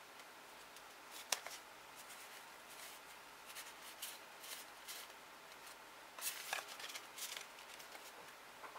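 World of Warcraft trading cards being handled: soft card-on-card flicks and rustles as they are fanned and slid past one another, with a sharper snap about a second in and a cluster of clicks near the end as the cards are set down.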